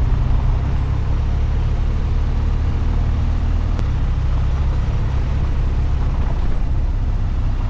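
BMW R 1250 GS boxer-twin motorcycle engine running steadily at riding speed on a gravel road, heard as an even low rumble from the bike-mounted camera.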